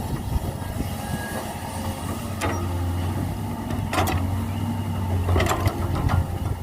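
Heavy diesel machinery running steadily with a low engine hum. Several sharp knocks come about a third of the way in, around the middle and near the end.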